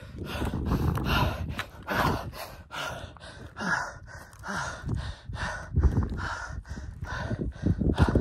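A man's heavy, rhythmic panting close to the microphone while running on a rocky trail, about two to three breaths a second, with footfalls on stony ground.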